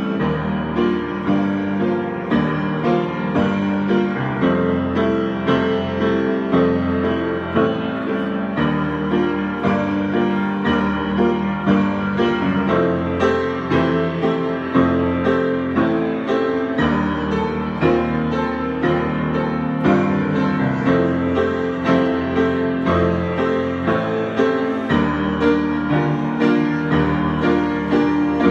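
Solo piano improvising, with flowing chords and melody notes played at a steady, unhurried pace.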